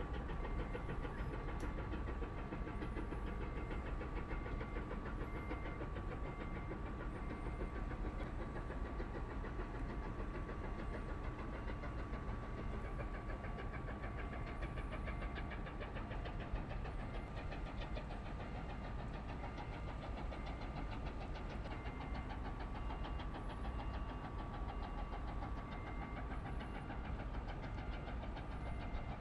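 Tugboat's diesel engine running steadily, heard from on deck, with a fast even firing beat and a steady hum above it.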